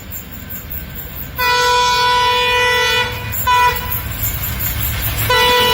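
WDM3A diesel locomotive horn blowing over the low rumble of the passing train: a long blast about a second and a half in, a short blast a couple of seconds later, and another long blast starting near the end.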